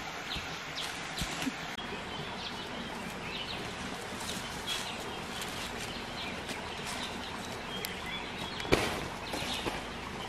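Wild birds chirping: many short, high calls scattered throughout over a steady outdoor hiss, with one sharp knock nearly nine seconds in.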